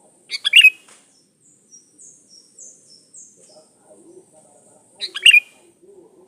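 Sooty-headed bulbul (kutilang) giving two short, loud song phrases, one near the start and one about five seconds in, with faint high falling notes in between.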